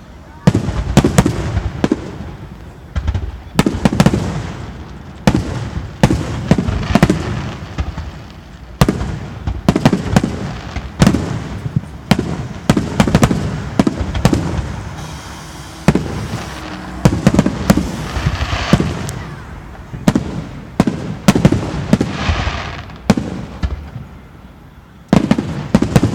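Aerial fireworks shells bursting in rapid, continuous succession: sharp bangs overlapping one another with rumbling echoes, and a few spells of crackling after some bursts.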